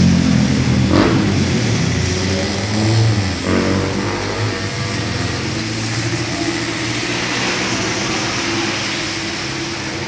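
Road traffic at a street intersection: vehicle engines passing and pulling away, loudest in the first few seconds with a sharp sound about a second in, then settling into a steady hiss of traffic.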